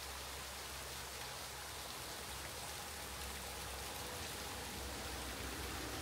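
Steady, faint rush of flowing water, an even hiss with no distinct strokes or knocks.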